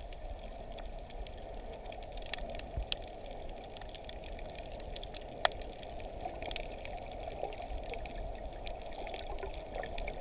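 Underwater ambience on a coral reef, picked up by a submerged camera: a steady muffled water noise with scattered crackling clicks, and one sharp click about five and a half seconds in.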